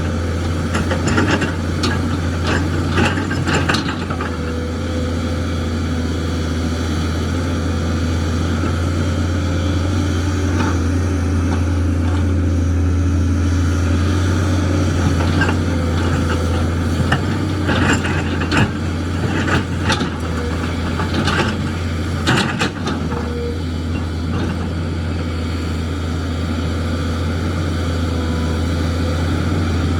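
JCB excavator's diesel engine running steadily, with scattered knocks and clatters of metal and rock, in a run near the start and again past the middle.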